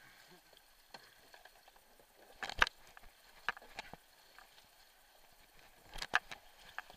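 Whitewater kayak paddle strokes: short, sharp splashes and knocks of the blade in the water, loudest about two and a half seconds in and again around six seconds. Under them runs the faint, steady rush of the creek in high water.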